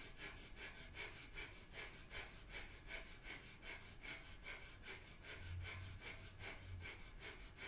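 Breath of fire: quick, even, forceful breaths through the nose, about three to four a second, pumped from the navel.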